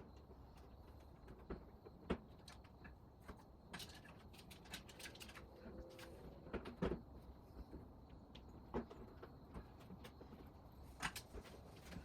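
Scattered light clicks and knocks of hardware and objects being handled during work, a few of them sharper, over a faint steady hum.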